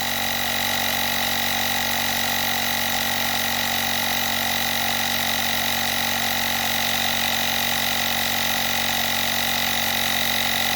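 Small electric tire inflator running steadily with a constant whine, pumping a motorcycle tire up from 30 toward 40 psi.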